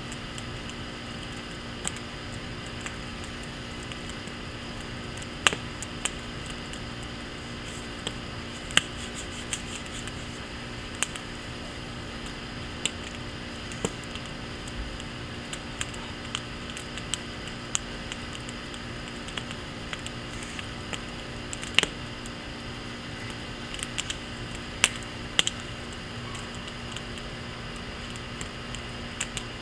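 Wood fire burning in a teepee stack in a firepit, crackling with irregular sharp snaps and pops, a few much louder pops scattered through, over a steady faint background hum.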